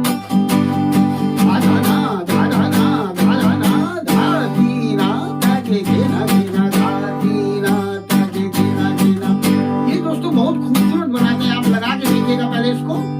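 Acoustic guitar strummed in a steady, even rhythm, with a gliding melody line over the chords.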